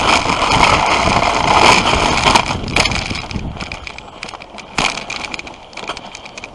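Dog sled runners hissing and scraping over packed snow as the sled glides along. It is loudest for the first few seconds, then fades, with a single knock about three-quarters of the way through.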